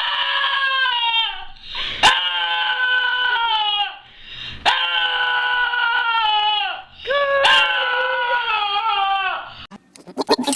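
Dog howling in four long, drawn-out calls, each about two seconds and falling in pitch at the end.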